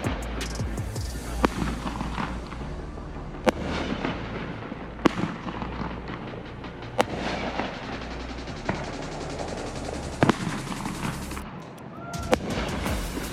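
Consumer fireworks going off: sharp bangs about every one and a half to two seconds over continuous crackling, with music underneath.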